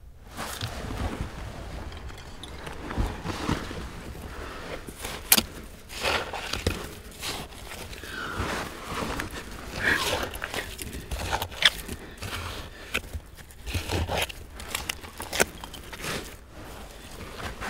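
Gloved hands scraping and raking through loose soil, clay and rubble: irregular gritty scrapes and crunches with a few sharp knocks of stone or glass.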